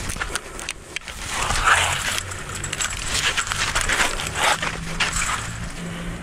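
An angler breathing hard after fighting a giant trevally, in ragged breaths, with sharp clicks and scuffs of tackle handling close to the microphone.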